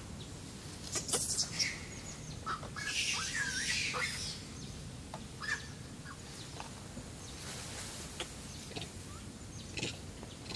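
Outdoor ambience with scattered short, high chirps and squeaks, a few sharp clicks, and a brief hiss about three seconds in.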